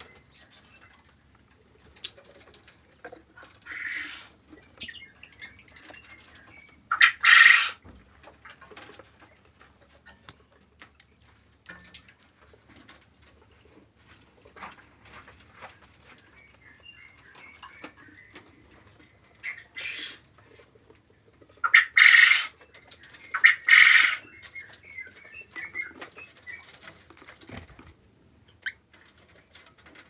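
Lovebirds in a cage giving short, high chirps, with a few loud harsh bursts about seven seconds in and again twice around twenty-two to twenty-four seconds in, amid wing flapping.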